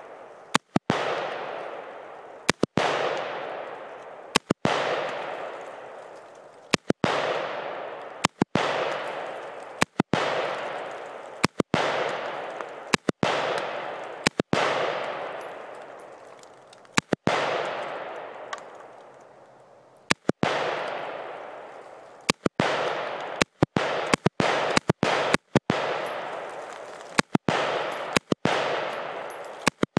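AR-15 rifle firing shots at a slow, steady pace, one every second and a half to two seconds. Most shots are followed a fraction of a second later by a second sharp crack, and each leaves a long echo that fades away.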